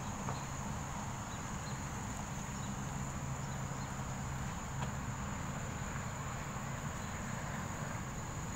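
Steady high-pitched drone of insects such as crickets, over a low steady hum.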